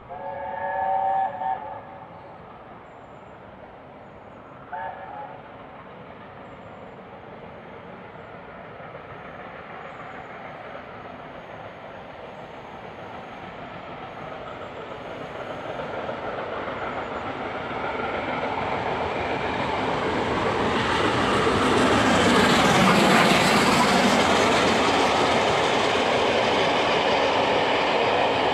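LNER A4 class steam locomotive sounding its chime whistle, a blast of about a second and a half, then a short one about five seconds in. The train then approaches, its noise growing steadily louder to a peak a little after two-thirds of the way through, and the coaches roll past.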